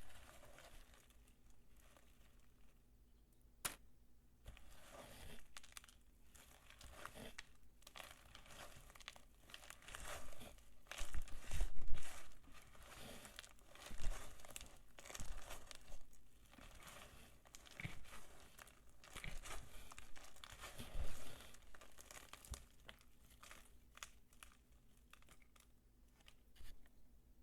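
Dry soap peelings being crumbled and rubbed between the fingers: irregular crackly crunching in clusters, loudest about halfway through.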